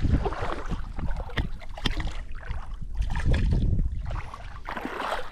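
Water lapping and sloshing around a person wading chest-deep, with a steady low rumble and scattered small, sharp splashes.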